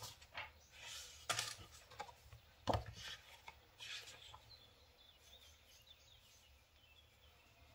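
Things being handled and knocked about on a wooden desk while someone rummages for a notepad: a handful of short knocks and rubs in the first half, the loudest a knock about three seconds in, then mostly quiet.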